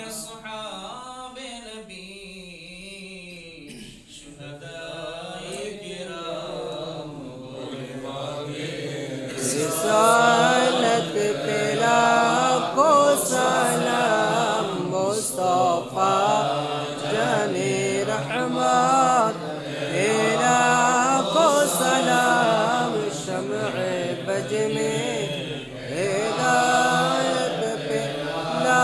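Men's voices chanting a slow, melodic Islamic devotional recitation of the milad. It is softer at first and grows louder about ten seconds in.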